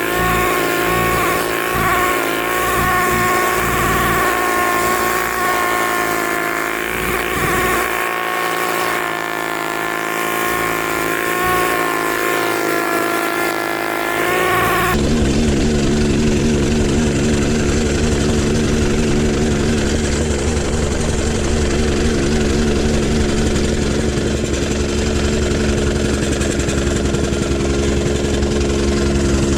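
An engine running with a shifting pitch. About halfway it gives way abruptly to the louder, steady run of a small engine with a fast pounding shake: a whacker packer (compactor) tamping backfill.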